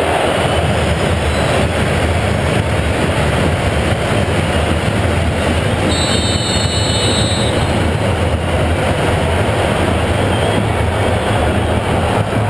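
Loud, steady stadium crowd noise with a heavy low rumble. A high whistle sounds about six seconds in and lasts over a second.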